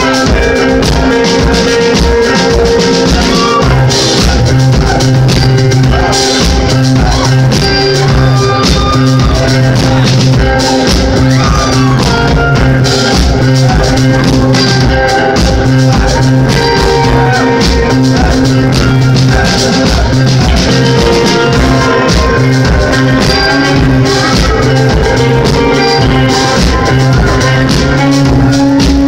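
Live indie rock band playing loud through a club PA: electric guitars, bass and a drum kit keeping a steady beat.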